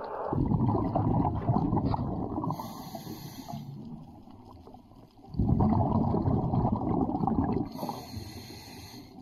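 Underwater water noise heard through a camera housing: two long swells of muffled, bubbling rumble, each about three seconds, with a short high hiss near the end of each.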